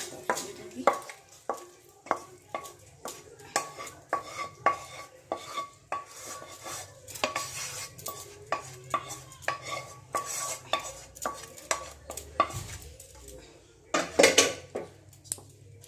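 A spoon scraping and tapping egg masala out of a bowl onto cooked biryani rice, about two sharp clinks a second with a short metallic ring, and a louder clatter near the end.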